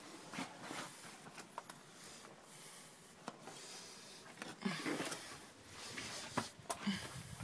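Irregular scuffs, scrapes and knocks of someone picking their way over rock in a small cave passage, mixed with rustling from the handheld phone; a few louder knocks in the second half.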